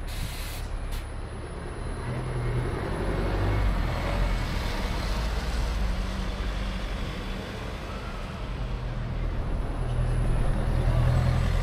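Street traffic with double-decker buses driving past close by, their engines humming under a haze of road noise. The sound swells twice, the second time near the end as a bus passes right beside.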